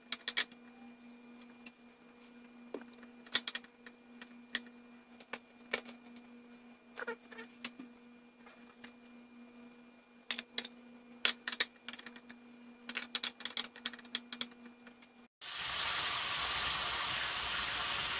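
Scattered light clicks and taps from raw chicken thighs being handled and seasoned, over a faint steady hum. About fifteen seconds in, this switches abruptly to loud, steady sizzling of the chicken thighs frying in hot oil in a pan.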